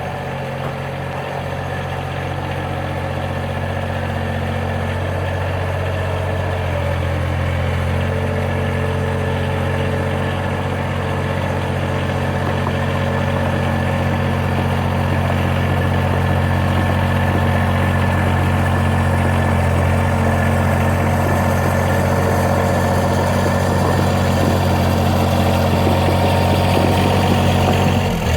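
Compact diesel tractor engine running steadily at a constant speed, gradually getting louder, with a small shift in its note several seconds in.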